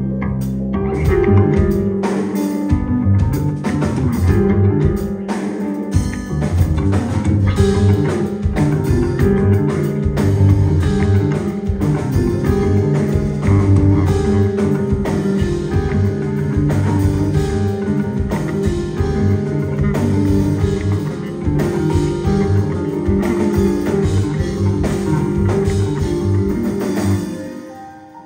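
Live instrumental math-rock band playing, with electric guitar, bass and drum kit together. The band stops sharply near the end and the sound dies away.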